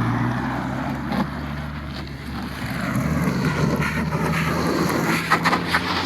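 Motor vehicle running with a steady low engine hum under wind and road noise, with a few short clicks near the end.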